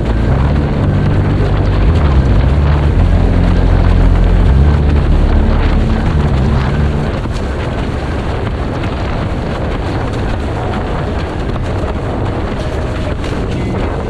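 Wind buffeting the microphone with rushing water. A deep stepping bass line from background music runs underneath and stops about halfway through.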